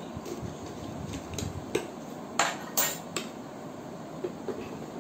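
Steel spoon and stainless-steel dishes clinking: about six short, sharp clinks and taps, the two loudest about two and a half and three seconds in.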